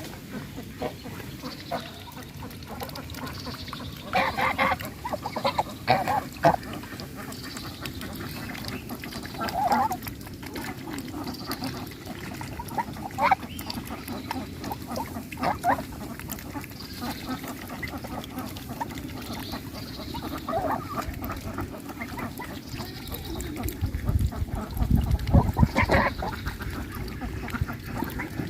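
Domestic goose honking in short calls every few seconds, with a cluster of louder calls about four to six seconds in. A deep low rumble joins near the end.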